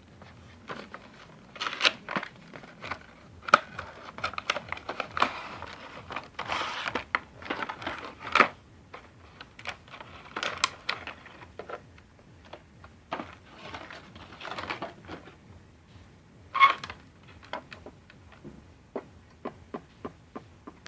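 Packaging being unwrapped and handled: irregular crinkling and rustling of plastic and cardboard, broken by sharp clicks and taps, a few of them loud.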